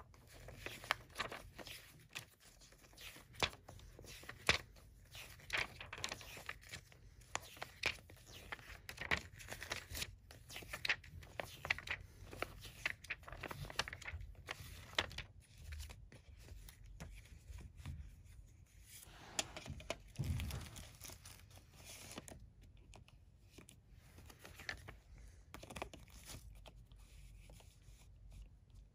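Paper pages of a CD booklet being turned and handled: irregular rustling and crinkling with many short clicks, quieter for a stretch about three quarters of the way through.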